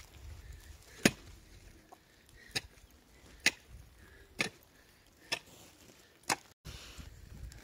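A hand tool chopping: six sharp, separate blows, roughly one a second.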